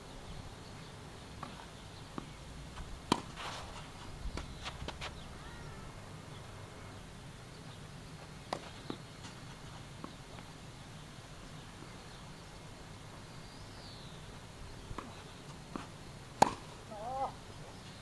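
Tennis balls struck by racquets and bouncing on the court: a few sharp, isolated pops spread several seconds apart, the loudest near the end.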